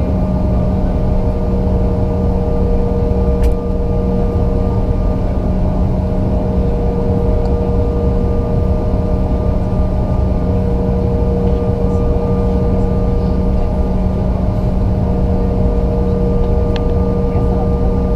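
Cabin noise inside a Bombardier CRJ-900LR: its rear-mounted turbofan engines run at a steady low power, a constant rumble with several steady whining tones and no spool-up. A single sharp click about three and a half seconds in.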